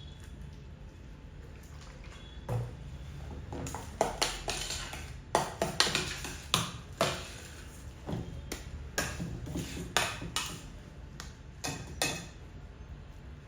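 A kitchen utensil clinking and knocking against a mixing bowl in irregular strikes, some of them ringing briefly. The strikes begin about two and a half seconds in and stop shortly before the end.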